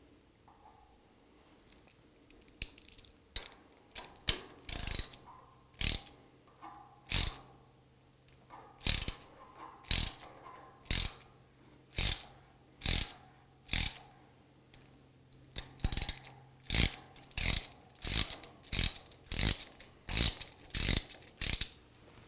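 A hand ratchet clicking in short spells, about once a second and a little faster near the end, as it turns an M6x1.0 plug tap on a socket extension to thread holes for a read head bracket.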